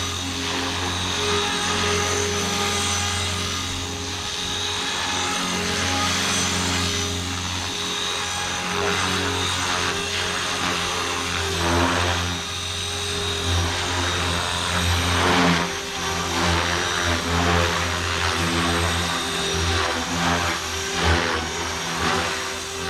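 Blade Fusion 360 3S electric RC helicopter in flight: the steady whine and hum of its brushless motor and spinning rotors, at the constant head speed of the Stunt 2 idle-up mode. It swells briefly a few times as the blade pitch is loaded in manoeuvres.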